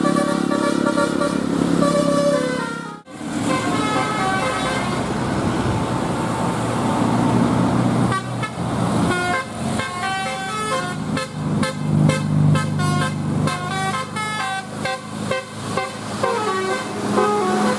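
Bus 'telolet basuri' multi-tone horn playing a tune in stepped notes, with engine noise underneath. The clip changes about three seconds in. From about eight seconds the horn plays quick, short, choppy notes.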